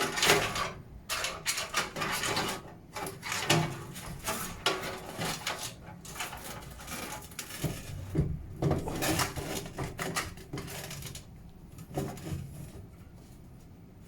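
A PC power supply unit being slid into a metal computer case: repeated scraping, clunking and rattling as it is pushed and shifted into place, thinning out over the last few seconds.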